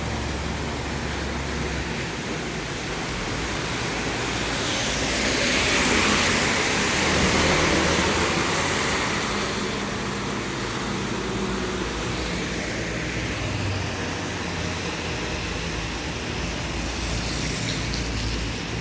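Steady rain hiss over a low engine hum, with a vehicle passing on the wet road about five seconds in, its tyre hiss swelling and fading over a few seconds.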